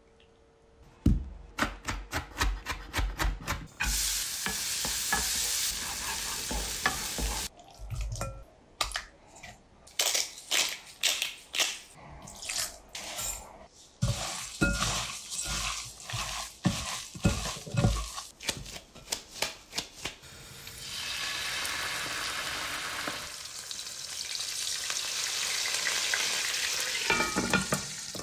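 Kitchen cooking: a fast run of sharp knocks and clatter of utensils on cookware, then food sizzling steadily in a hot pan for the last several seconds, with a few clinks near the end.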